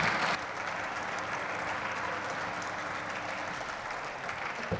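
Applause from a group of members of parliament clapping, loudest in the first half-second and then steady. A single thump near the end.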